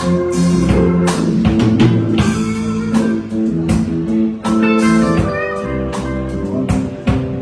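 Music led by guitar, with drums keeping a beat.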